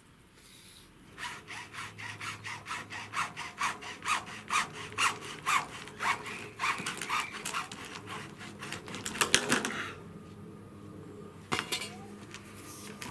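Hand saw, likely a hacksaw, cutting through plastic poly pipe with quick rasping strokes about four a second, stopping about ten seconds in. A sharp knock follows near the end.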